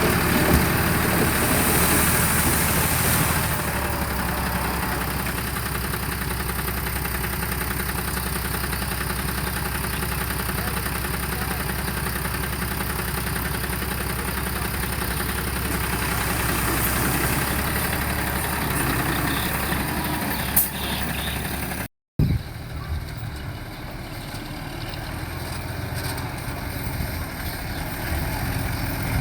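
Diesel engine of heavy construction machinery running steadily. About 22 s in the sound cuts out for a moment and resumes as a quieter engine sound.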